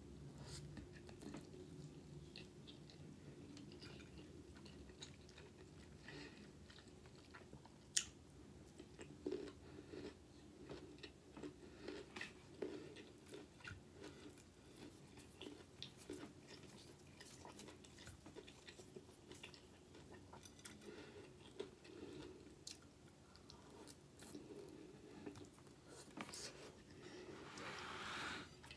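Quiet close-up chewing and mouth sounds of someone eating pasta and chicken, with scattered small clicks of a plastic fork on a plate. A louder scraping swell comes near the end as the chicken is cut on the plate.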